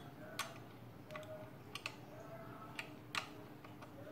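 Light, scattered clicks and taps of an Allen key in the hex bolt of a gas-spring monitor arm's tilt hinge and of the hinge's plastic and metal parts being worked by hand, with a couple of faint short creaks. The bolt is being loosened so the head tilts more freely.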